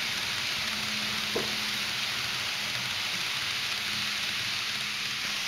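N gauge model Shinkansen train running on its track: a steady rolling hiss with a faint steady motor hum underneath, and a single light click about a second and a half in.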